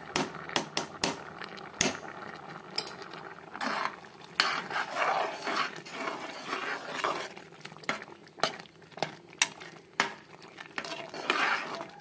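Steel spoon stirring rice, vermicelli and milk in a metal pressure-cooker pot, with irregular sharp clinks and scrapes against the pot's sides and bottom, stirred to keep it from catching on the bottom.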